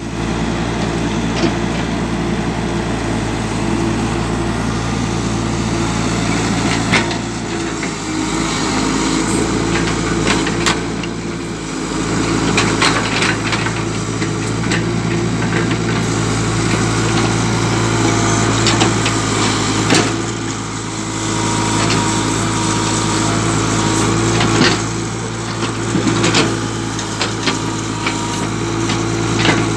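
Tata Hitachi EX70 excavator's diesel engine running steadily under working load, rising and easing as the boom and arm move. Several sharp knocks and scrapes through it as the bucket works the stony soil.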